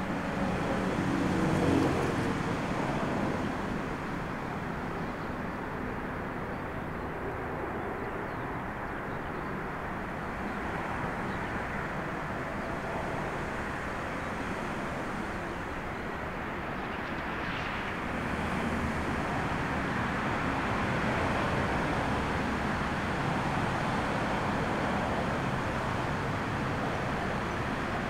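Jet engines of a twin-engine airliner on final approach, a steady rushing noise mixed with storm wind. It swells briefly about two seconds in and grows a little louder from about eighteen seconds in.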